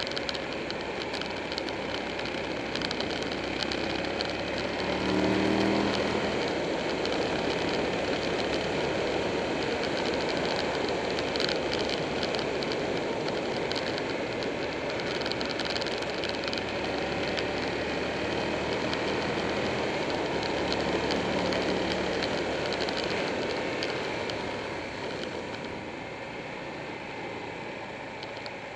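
Buell 1125R motorcycle riding at speed: steady wind and road rush over the bike-mounted camera with the V-twin engine running underneath, its note standing out briefly about five seconds in.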